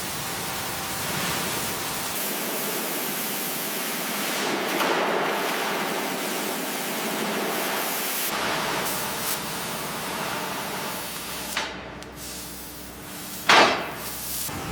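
Steady rushing hiss that shifts in tone a few times, with one short, sharp knock near the end, the loudest sound.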